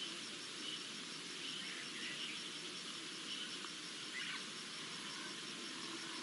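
Bush ambience: a steady, evenly pulsed high insect chirping, with a few faint bird chirps scattered through it.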